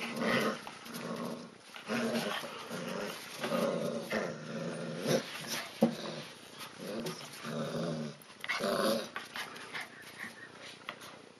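Husky puppies growling in short, repeated bouts while playing tug of war with a plush toy, with a sharp knock about six seconds in.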